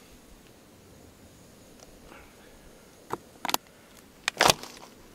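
Thin plastic water bottle being handled and set down: a few sharp crackles and taps starting about three seconds in, the loudest just after four seconds.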